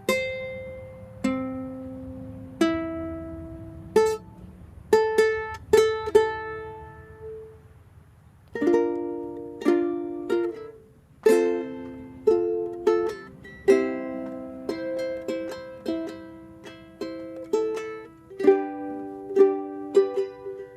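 Handmade six-string koa tenor ukulele being played: single plucked notes and chords left to ring out at first, then steadier strummed chords from about eight seconds in.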